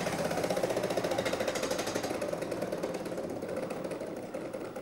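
Game-show prize wheel spinning, its pegs clicking rapidly against the pointer in a fast run of ticks that slowly fades.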